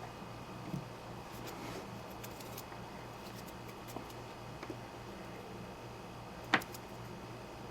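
Wire cutters working on a laptop power adapter's cord: a few small clicks and one sharp snip about six and a half seconds in, over a faint steady hum.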